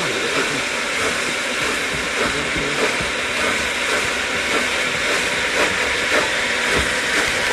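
BR Standard Class 8 Pacific No. 71000 Duke of Gloucester, a three-cylinder steam locomotive, pulling away from a station with a steady, loud hiss of steam escaping around its cylinders as it starts the train.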